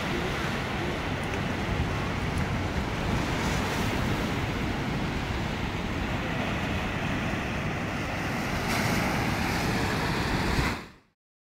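Surf breaking on a sandy beach, a steady wash of waves mixed with wind buffeting the microphone. The sound cuts off abruptly near the end.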